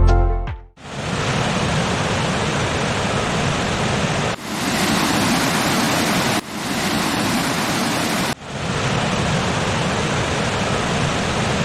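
Steady roar of a waterfall, an even rushing noise that changes abruptly in level and tone three times, about four and a half, six and a half and eight and a half seconds in. Background music fades out just at the start.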